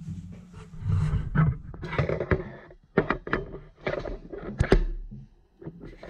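Handling noise on the camera's microphone as it is moved in close: irregular rustling and rubbing with a few sharp knocks, the loudest about three seconds in and near five seconds.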